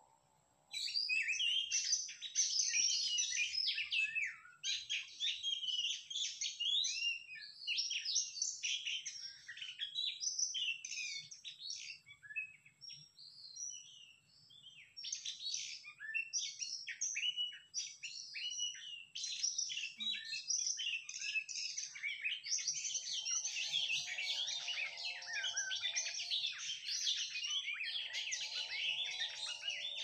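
Oriental magpie-robin (kacer) song: a loud, varied stream of whistles and chirps that starts abruptly about a second in and runs on with short pauses. A lower, wavering trill joins twice in the second half.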